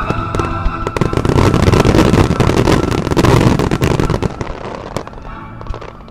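Starmine firework barrage: a rapid volley of shell bursts and dense crackling, loudest through the middle seconds and thinning out near the end, with music playing underneath.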